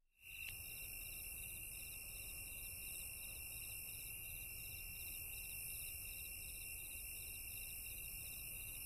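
Faint night insect chorus, crickets trilling steadily with rhythmic chirps at about three a second, over a low rumble; it fades out at the end.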